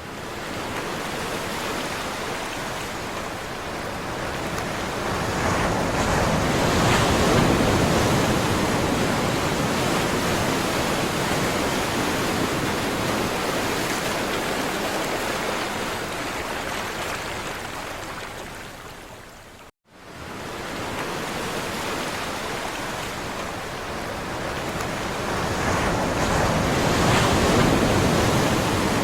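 Sea waves washing onto a shore: a steady rushing that swells twice as waves break, about a quarter of the way in and again near the end. It cuts out for an instant about two-thirds of the way through.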